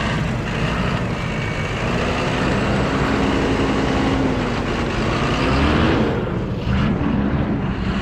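Farm tractor engine running steadily under load while ploughing. Its pitch wavers and briefly rises and falls about six seconds in.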